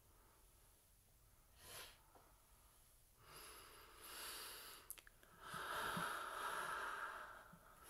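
Quiet breathy exhalations close to the microphone: a short one, a longer one about three seconds in, and a stronger one lasting about two seconds after a single click.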